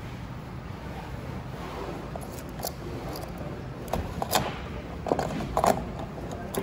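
A few sharp mechanical clicks and knocks, in a cluster about four seconds in and another a second later, over a steady low hum.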